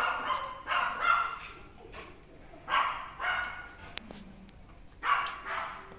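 A dog barking repeatedly, the barks coming in pairs about two seconds apart.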